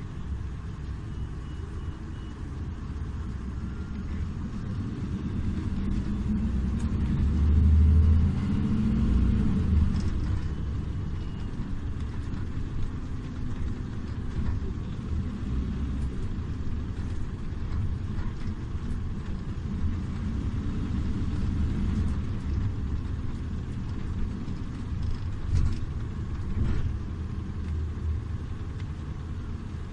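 Iveco Urbanway 12 Hybrid city bus running with a steady low rumble, which swells to its loudest about eight seconds in and then settles, with a couple of brief knocks near the end.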